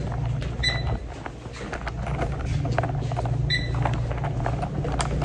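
Two short high beeps about three seconds apart, over a steady low rumble and scattered light clicks and knocks of handling.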